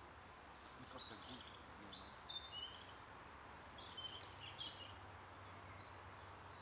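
A bird singing: a run of short, high chirps and whistles lasting about four seconds, some sliding down in pitch, over steady outdoor background noise.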